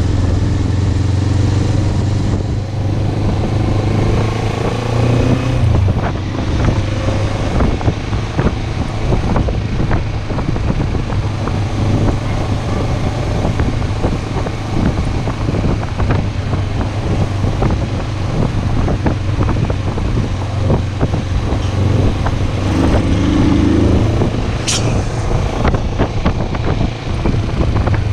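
Motorcycle engine running steadily while riding, with wind and road noise on the microphone. A brief sharp high sound about 25 seconds in.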